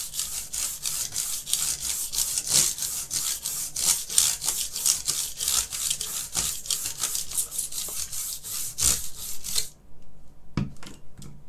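Rapid back-and-forth scrubbing across the bare key switches of a BBC Master keyboard, cleaning it with alcohol, about four strokes a second. The scrubbing stops suddenly near the end, followed by a couple of light clicks.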